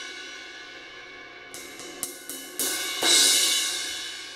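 An 18-inch Zildjian K Dark Thin crash cymbal with about three cracks being sound-tested. The ring of an earlier hit dies away, then four light, sharp taps come about a second and a half in, followed by a louder crash near three seconds in that rings and fades. The owner says the cracks don't really affect the sound.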